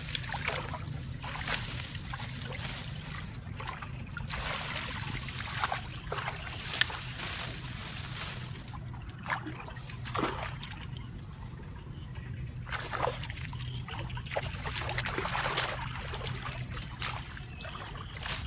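Water splashing, sloshing and trickling in irregular bursts, over a steady low hum.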